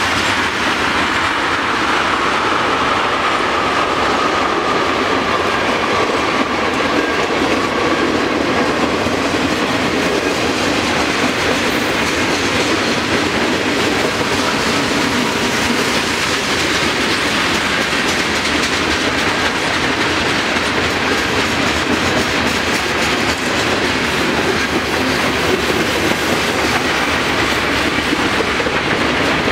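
Freight train of covered hopper cars rolling steadily past a grade crossing, a loud, even rumble of steel wheels on the rails.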